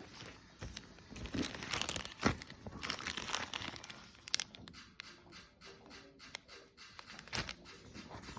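Crinkling and rustling, with sharp clicks and taps, busiest in the first half and quieter after.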